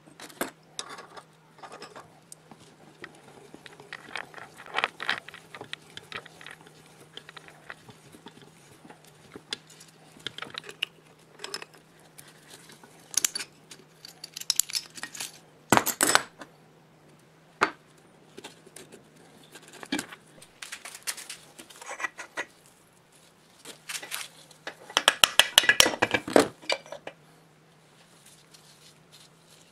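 Steel tools clinking and clanking against the cast-iron air compressor crankcase as a three-jaw gear puller is fitted and worked on the crankshaft. Scattered light clinks, one sharp metallic knock about halfway through, and a quick flurry of rattling clinks near the end.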